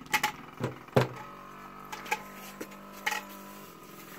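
Small dirt bike engine running with a steady hum that cuts off near the end. Several sharp clicks come in the first second.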